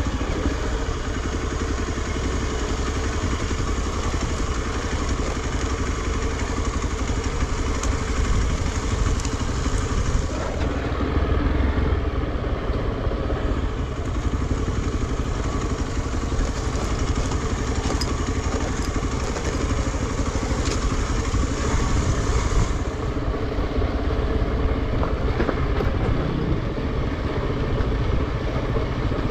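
Single-cylinder motorcycle engine running steadily at low revs while the bike is ridden over a rough dirt trail.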